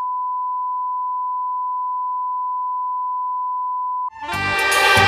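Steady line-up test tone accompanying colour bars, one unwavering pitch. It cuts off about four seconds in, and loud music with a beat starts right after.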